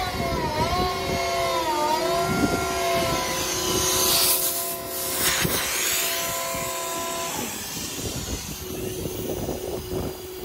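Truck-mounted hydraulically driven Vanair 40 Tiger air compressor switched on and running: a mechanical whine of several tones that waver in pitch for the first few seconds, then settle and hold steady. A short rush of hiss comes about four seconds in, and about seven seconds in the upper tones drop away, leaving a fainter steady hum.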